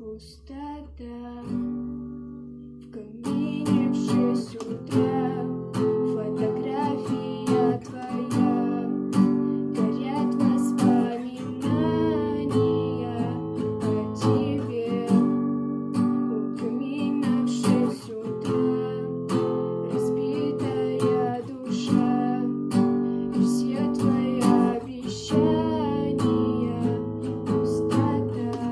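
Acoustic guitar strummed in chords, an instrumental stretch of a song, building up about three seconds in.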